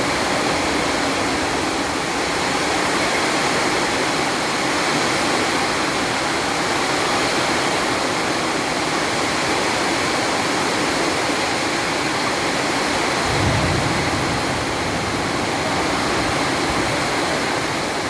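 Heavy storm rain pouring down in a steady, dense hiss, with a brief low rumble about two-thirds of the way through.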